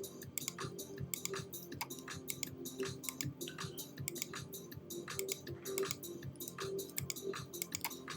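Background music: a quick, clicking beat over a few steady held notes.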